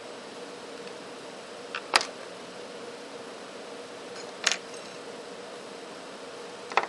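Three sharp clicks of small phone parts and tools being handled on a work mat, about two seconds in, halfway through and near the end, over a steady hiss with a faint hum.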